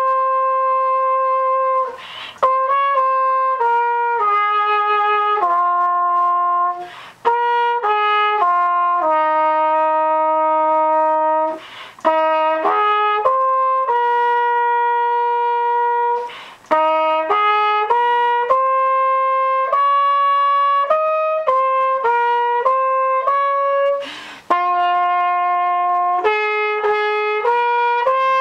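A solo trumpet playing a slow melody one note at a time, mostly long held notes, with short breaks for breath every few seconds between phrases.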